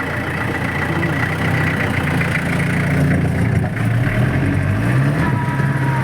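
Off-road jeep's engine running under way. Its note dips and climbs again about four seconds in.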